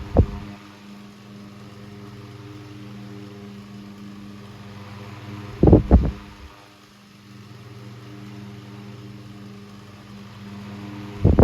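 Antique Robbins & Myers 12-inch table fan running with a steady electric motor hum. A loud, brief clatter comes about every five and a half to six seconds: near the start, about halfway, and again at the end.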